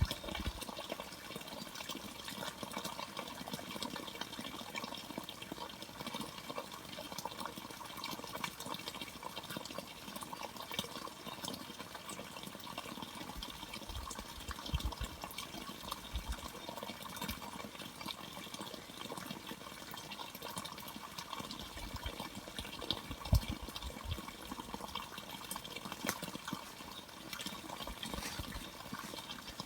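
Running water, a steady splashing flow. A few low thuds break in around the middle and near the three-quarter mark.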